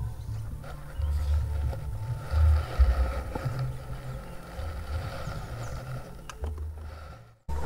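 Wind rumbling on the microphone in uneven gusts, with a few faint clicks near the end; the sound breaks off abruptly just before the end.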